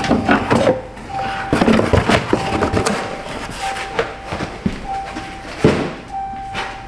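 The truck's warning chime sounds with the key in the on position: one steady electronic tone repeating about once a second. Scattered clicks and knocks are heard with it.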